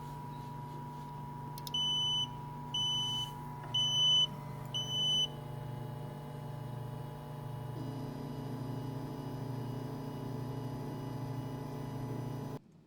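3D printer running with a steady fan and motor hum, giving four short high beeps about a second apart as the print job starts. The hum shifts slightly about eight seconds in.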